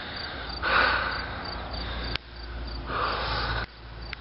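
Crickets chirping in a steady rhythm, about three chirps a second, with two heavy, noisy breaths, each about a second long, from a man winded by heavy lifting.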